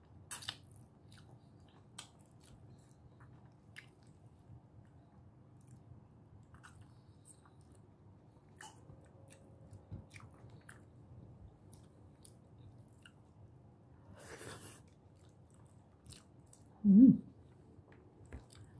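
A person chewing fish and rice eaten by hand, with soft chewing and small wet lip and mouth clicks close to the microphone. A short breathy noise comes about fourteen seconds in, and a brief loud vocal sound near the end.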